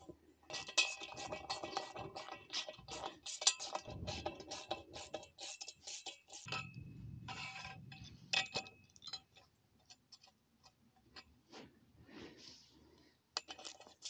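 Hand socket ratchet clicking in quick runs, with metal hardware clinking, as bolts are tightened on clamps that fasten a galvanized steel post to a wooden beam. The clicking is densest in the first half and thins out into scattered clicks later.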